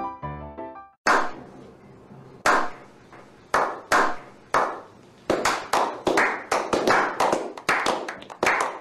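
A small group slow clapping: single claps about a second apart that quicken after about five seconds into faster, overlapping applause.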